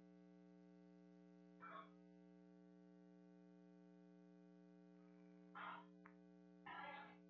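Near silence: a steady electrical mains hum, with a few short faint noises about two, five and a half, and seven seconds in.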